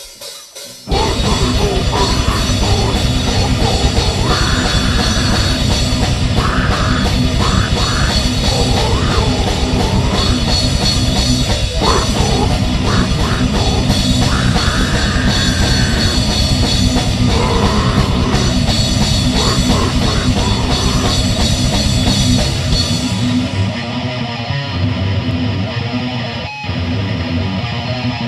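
A heavy metal band plays loud: drum kit, distorted electric guitar and bass come in together about a second in after a brief cymbal lead-in. The sound thins out near the end as the high cymbal wash drops away.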